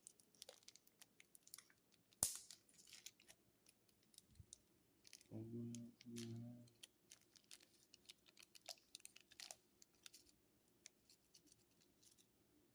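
Faint crinkling and clicking of a seasoning packet being handled and opened, with one sharper snap about two seconds in. A brief low murmur of a voice in the middle.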